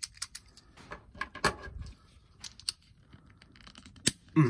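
Hard plastic parts of a Masters of the Universe Origins Roboto action figure clicking and rattling as they are handled and worked apart, scattered light clicks with a sharper snap about four seconds in.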